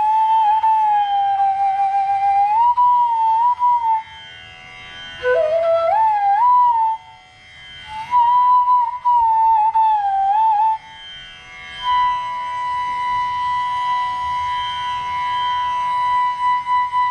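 Bansuri (bamboo transverse flute) playing slow, held phrases of raag Patdeep, sliding between notes, over a steady drone. The flute stops after about eleven seconds, leaving the drone sounding alone.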